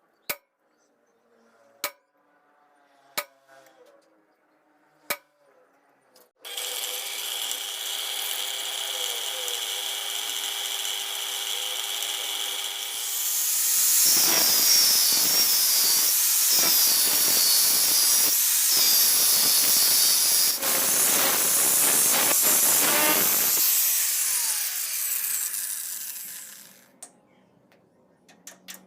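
A few light knocks, then a power grinder starts about six seconds in and runs free with a steady whine. About seven seconds later it bites into the steel blank with a much louder, harsh grinding hiss for about ten seconds, then it is lifted off and winds down.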